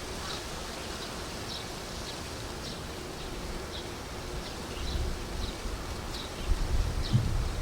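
Outdoor ambience of short, high chirps repeating irregularly about once or twice a second over a low rumble that swells briefly twice near the end.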